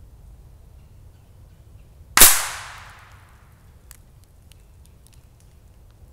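A single .22 LR rifle shot from a Savage Mark II TR: one sharp crack about two seconds in, fading out over most of a second.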